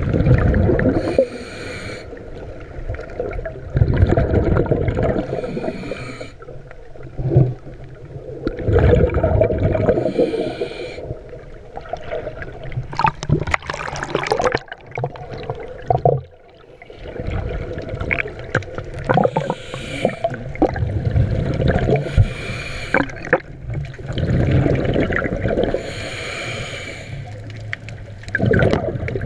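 Underwater sound through a GoPro housing: a snorkeler's breathing through the snorkel comes in rushing, gurgling breaths every few seconds over a low rumble of moving water. About 13 seconds in, a choppy splashing wash as the camera breaks the surface.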